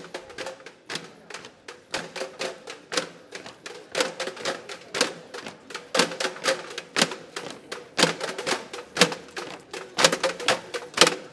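Rhythmic percussion of dry clicks and taps, with a stronger hit about once a second and a faint steady tone underneath.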